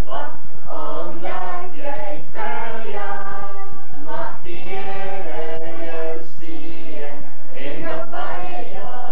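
A group of people singing together, with long held notes.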